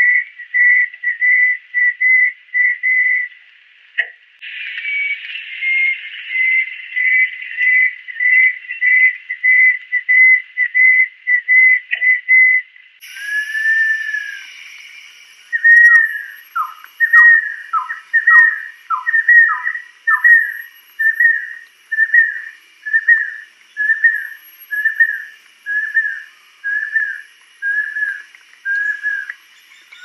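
Banded kingfisher calling: a long series of clear whistled notes, about two a second. In the second half the notes turn into downward-slurred whistles, then come more slowly toward the end.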